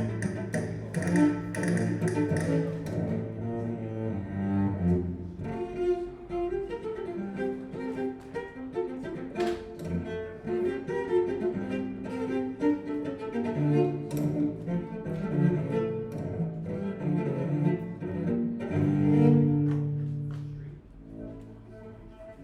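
Recorded music played back over Marten loudspeakers: an instrumental passage with sustained, bowed low-string notes and no singing, turning quieter near the end.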